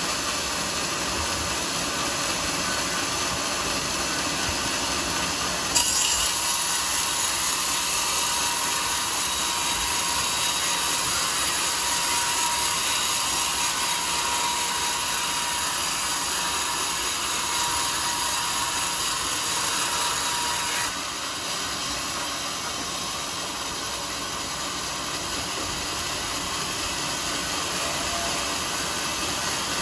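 Sawmill saw running steadily, then biting into a teak log about six seconds in. It cuts with a louder, brighter sound and a steady tone, then drops back to free running about twenty-one seconds in.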